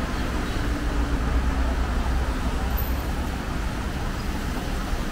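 Steady city street traffic noise: a continuous low rumble of passing cars and buses.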